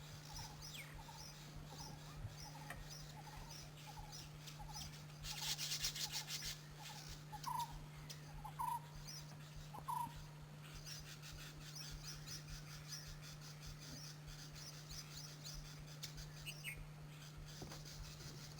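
Faint field ambience with small birds calling: strings of short, high chirps repeated through most of the stretch and shorter, lower notes in the first half, over a low steady hum. A brief rasping noise comes about five seconds in.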